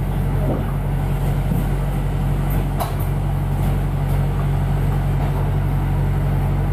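Steady low hum of a London bus's engine idling, heard from inside while the bus stands still, with a single short click about three seconds in.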